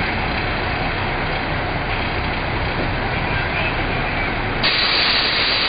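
Steady outdoor noise with a low rumble. About four and a half seconds in, it abruptly gives way to a louder, brighter hiss.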